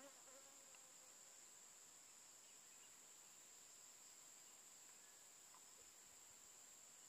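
Faint, steady, high-pitched insect drone, unbroken throughout, with a few faint short chirps in the first second.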